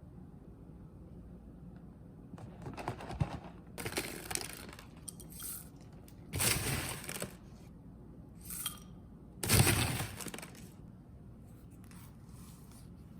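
Packaging being handled, rustling, crinkling and tearing in about five short bursts, the loudest about two-thirds of the way through.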